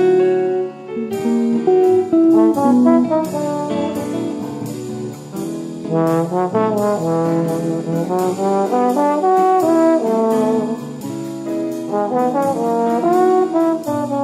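Instrumental background music with a busy melody of quick, changing notes.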